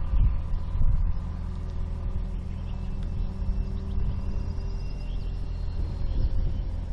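Tractor engine giving a steady low rumble, with a faint thin high whine coming and going in the middle.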